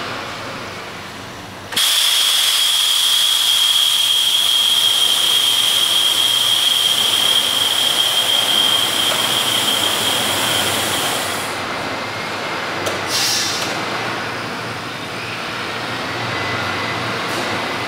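A deep-draw vacuum forming machine hisses loudly with a steady high whistle as its table rises and the vacuum draws the heated sheet. The hiss cuts in sharply about two seconds in and stops about eleven seconds in, and a short second hiss follows a little later.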